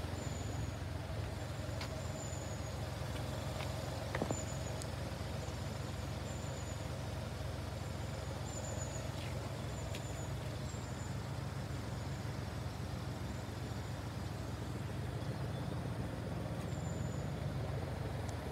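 Steady low outdoor rumble, with short, high, thin chirps repeating every second or so and a faint knock about four seconds in.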